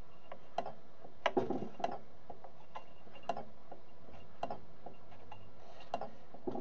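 Crank linkage and flywheel of a homemade model Stirling engine giving irregular single clicks and knocks as it is turned over by hand. The engine is not catching and running on its own.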